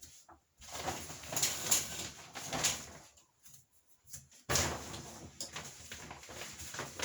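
Rustling and scraping as a shower curtain is handled and hung, in two stretches; the second starts suddenly about four and a half seconds in.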